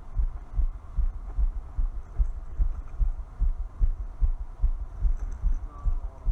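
Wind buffeting the microphone: irregular low rumbling thumps, several a second.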